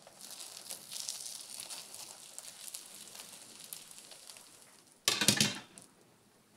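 Egg-dipped bread rolls sizzling and crackling in melted butter in a frying pan as they are turned over on their skewers, with a short, louder burst about five seconds in.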